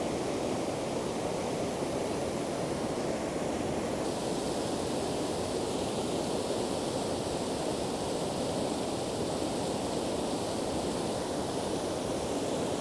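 Steady rush of river water pouring over whitewater rapids, an even, unbroken noise.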